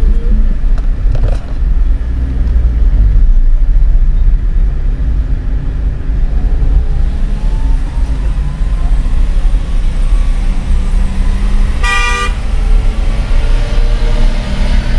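Engine and road rumble inside a car climbing a steep, winding mountain road behind a lorry. Near the end, one short vehicle horn toot.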